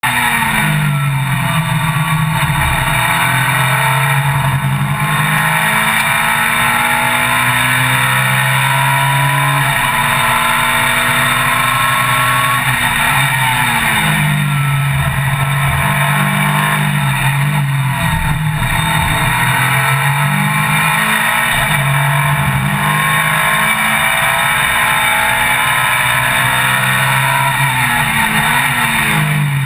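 Ferrari F430 GT Cup race car's V8 at full racing load, heard from inside the cockpit: the engine note climbs hard through the gears, drops back on each shift and on braking for corners, then climbs again, with no let-up.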